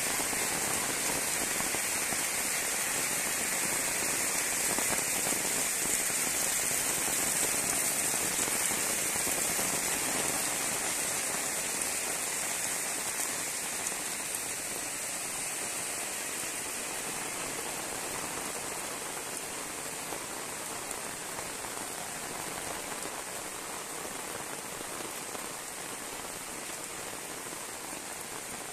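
Heavy rain falling steadily on a wet concrete lane and the plants around it, easing a little in the second half.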